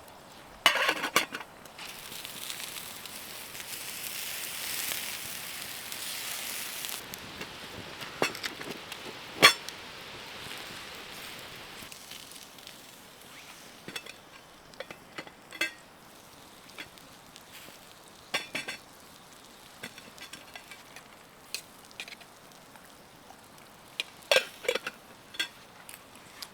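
Hissing sizzle of food cooking in a pan, swelling for a few seconds and then slowly dying away, with scattered clinks and taps of cookware and utensils, several of them close together near the end.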